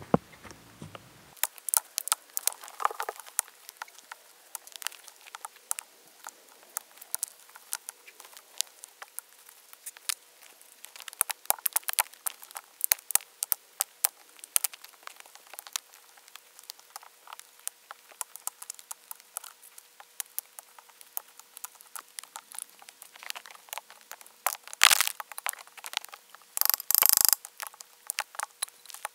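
Stones clacking and scraping against one another and the gravelly ground as they are set down one by one to build a fire-pit ring, with a pair of louder knocks and a scrape near the end.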